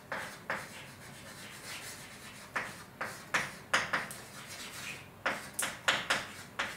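About a dozen sharp, irregular clicks and taps, bunched into two quick clusters, each with a short ringing tail.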